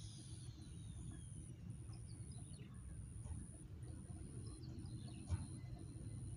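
Outdoor ambience: a steady low rumble with faint bird chirps, and a single short knock about five seconds in.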